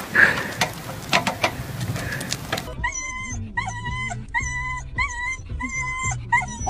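A few sharp knocks and clatters of a wooden stick against a chain-link fence. Then a short high whining note, repeated evenly about six times.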